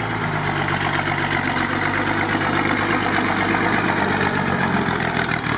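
Mercedes-Benz off-road truck's engine running steadily at low speed as the truck crawls through water, a constant low drone.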